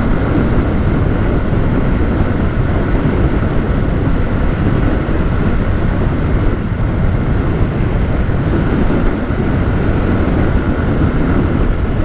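Honda Titan 150's single-cylinder four-stroke engine running steadily while the motorcycle is ridden, with a heavy low rumble of wind on the microphone.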